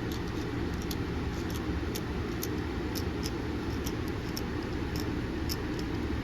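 A steady low rumble like an idling engine runs underneath light, irregular clicks and ticks of small metal parts being handled as a folding knife is worked on.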